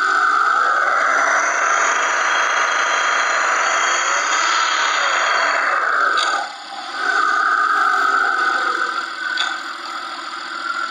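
Peugeot 407's 3.0 V6 petrol engine (ES9A) running, with a steady high-pitched whine over it that cuts out briefly about six and a half seconds in and weakens near the end.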